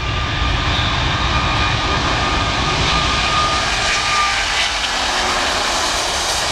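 Engines of a large aircraft flying past, a loud, steady engine noise with a thin whine over it that fades about four seconds in.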